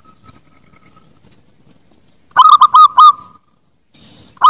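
Zebra dove (perkutut) singing: a loud, quick phrase of several short cooing notes about halfway through, with the next phrase just starting at the very end.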